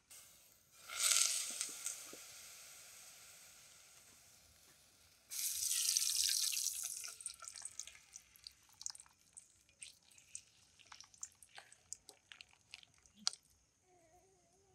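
Cooking oil poured from a bottle into an aluminium pot: two sudden loud hissing pours that fade, then the stream thins to scattered drips and small ticks.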